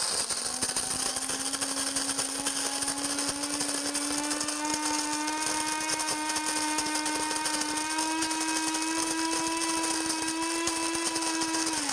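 Cuisinart DBM-8 Supreme Grind electric burr grinder running, its motor whine and the crunch of coffee beans being ground at a medium setting. The pitch rises slowly as it runs, and it winds down and stops on its own near the end, having ground the preset amount of coffee.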